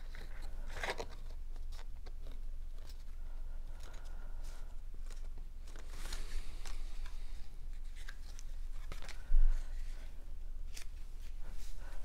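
Cardstock pieces of a paper box card being handled, folded and pressed flat on a tabletop: scattered soft rustles, creases and light scrapes, with one dull thump about nine seconds in.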